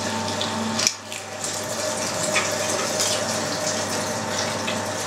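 Electric meat grinder running steadily, its motor humming and whining as it grinds lean beef and pork through a fine 2 mm plate. A single sharp knock about a second in.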